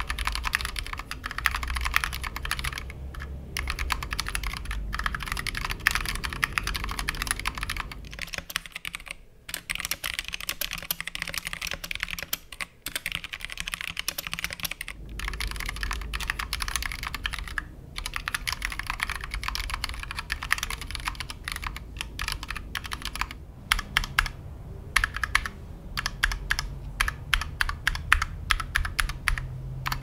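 Continuous typing on a Drop x OLKB Preonic ortholinear mechanical keyboard with Kailh linear switches in a machined aluminium case. Keystrokes come in a fast, irregular clatter, broken by a few brief pauses.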